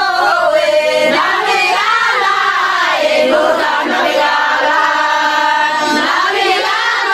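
A group of voices singing a Somali Bantu song together, with a long held note about halfway through.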